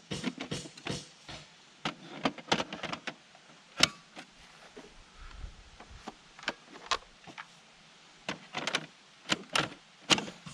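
Irregular sharp clicks and knocks of the Stiga Twinclip battery lawnmower's plastic parts and controls being handled and adjusted, in small clusters, the loudest about four seconds in.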